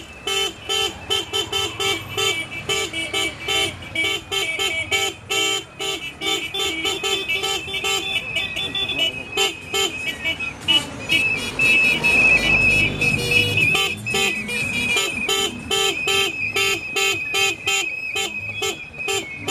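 Many vehicle horns honking over and over in a slow-moving motorcade of mototaxis, in quick repeated toots, with one horn held as a long steady tone through the second half. Engines run underneath, with a louder rumble in the middle.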